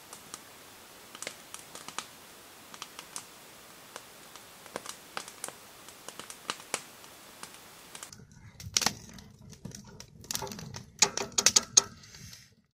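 Campfire crackling and popping, sharp irregular snaps over a low rumble of burning wood. The snaps start faint and sparse and become louder and more frequent about eight seconds in.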